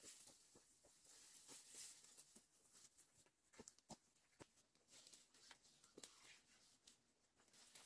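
Faint, irregular footsteps of rubber boots on a dirt path strewn with dry leaves, with scattered leaf crunches.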